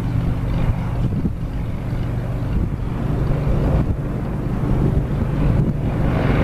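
Single-engine Cessna's piston engine and propeller running at low taxi power, a steady drone.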